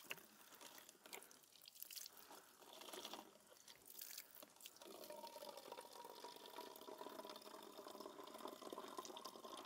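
Spring water trickling and dripping into a plastic bottle held under a small mountain-spring outlet, faint, with scattered small drip ticks. A faint steady tone joins about five seconds in.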